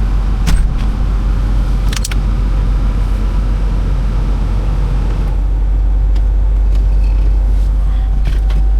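A vehicle running with a steady low rumble. Two sharp clicks or knocks come in the first two seconds.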